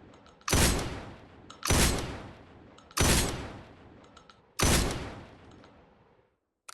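Four shotgun shots fired at a steady pace a little over a second apart, each a sharp blast followed by a trailing echo.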